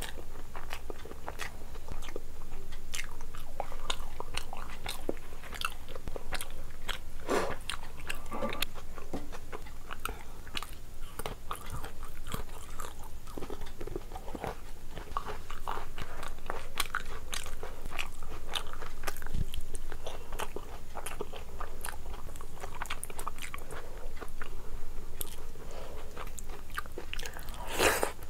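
A person chewing and crunching food, a steady run of short crunches and clicks, with a louder crunch near the end.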